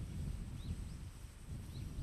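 Low, distant rumble of a DE10 diesel locomotive hauling 24-series coaches, slowly fading, with a few short, high bird chirps over it.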